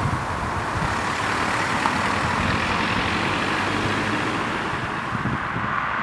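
Steady outdoor rumble and hiss, with wind buffeting the microphone in irregular low gusts.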